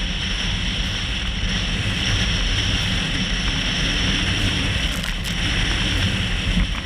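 Strong wind buffeting the microphone over the rush and hiss of water and spray as a heeled sailboat pounds to windward through waves in gusty heavy weather. A few sharp splashes of spray come about five seconds in.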